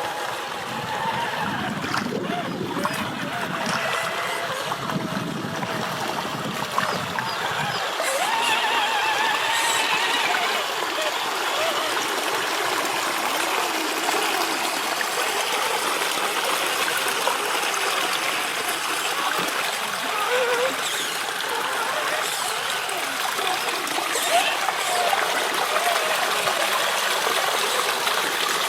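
River water flowing and splashing steadily.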